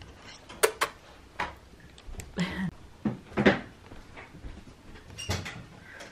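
Irregular knocks and clicks, about eight over a few seconds, with a slightly longer dull knock about two and a half seconds in.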